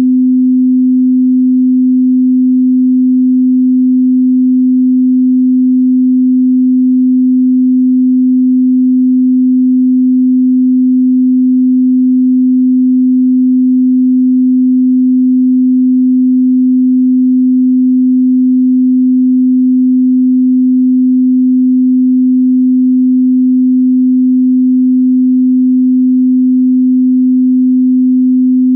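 Pure 255 Hz sine-wave test tone, held steady at one pitch and loudness.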